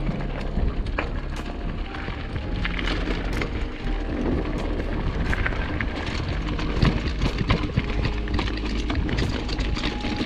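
Wind rumbling on an action camera's microphone while a mountain bike rides over rough gravel, with frequent sharp knocks and rattles from the bike.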